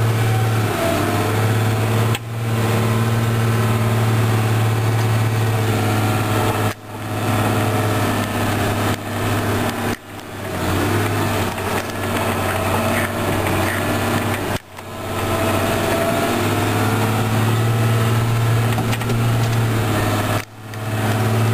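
Trail-grooming tractor's engine running steadily under load while it pulls a grooming drag through snow, heard from inside the cab. The sound drops out briefly about five times and climbs back each time.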